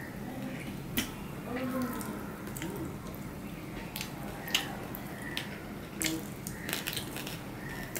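Fingers squishing and mixing rice and fried fish on a stainless steel plate, with scattered sharp clicks and taps. Near the end come wet mouth sounds as a handful is eaten.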